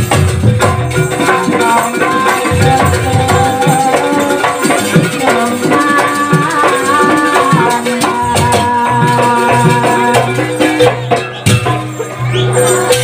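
Live jaranan gamelan accompaniment playing a sampak: drums and gongs under a held, shifting melody line, with rattling percussion.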